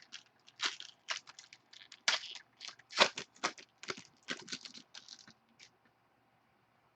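Packaging on a sealed box of trading cards being crinkled and torn open: a run of irregular crackles and rustles that stops about six seconds in.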